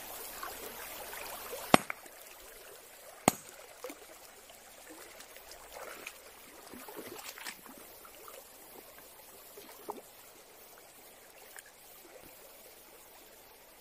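Two heavy strikes of an iron sledgehammer on a river stone, about a second and a half apart, knocking the rock to stun fish hiding under it. Then water splashing and trickling as hands lift stones and feel beneath them in the shallow current.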